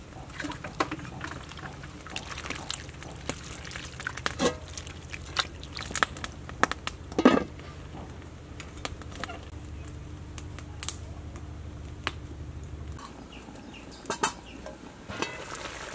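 Covered pot of soup simmering over the fire, with scattered small ticks and clicks over a steady low hum that stops about thirteen seconds in.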